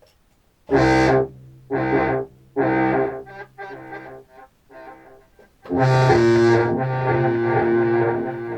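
Contrabass clarinet played through an effects pedalboard with a Walrus Fable granular delay, heard through studio speakers. Three short notes come about a second apart, then quieter broken fragments, then a long held note from near six seconds that slowly fades.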